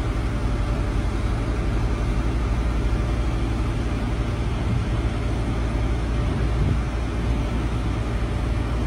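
Steady low rumble of idling diesel semi-trucks.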